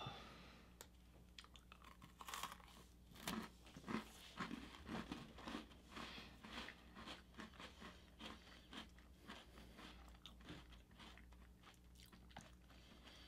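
Faint crunching and chewing of Nutter Butter peanut butter sandwich cookies by two people, irregular crisp crunches that are busiest in the first half and thin out toward the end.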